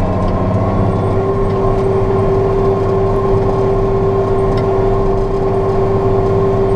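John Deere 6115M tractor's diesel engine running steadily under load, heard from inside the cab. A steady whine comes in about a second in and holds.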